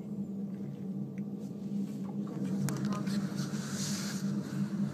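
A steady low hum, with a few faint clicks and faint background voices.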